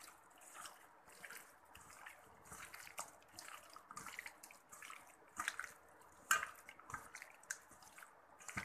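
Hands squishing raw chicken pieces through a wet yogurt-and-cornflour marinade in a steel bowl: irregular soft squelches and smacks, with a few sharper knocks, the loudest a little after the middle.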